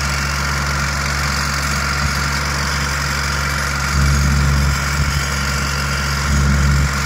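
Engine of a ride-on trencher running steadily while it cuts a trench for fiber optic cable. Its note gets louder twice, about four seconds in and again near the end.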